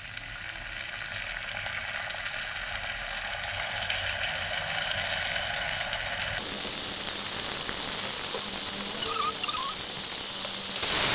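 Oil sizzling in a saucepan as spoonfuls of sweet fermented soybeans are dropped onto frying shallots and garlic, the hiss growing louder about four seconds in.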